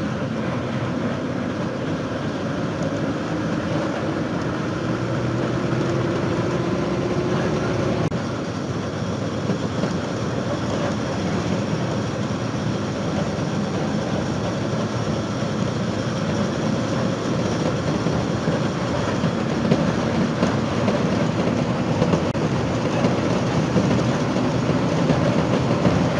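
Bus ride heard from inside: steady engine and road rumble with a continuous rattle. About four seconds in, the engine note rises for a few seconds as it pulls.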